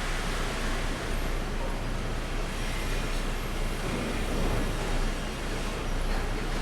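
Sawmill machinery running steadily: a continuous, even mechanical noise with no separate strokes or knocks.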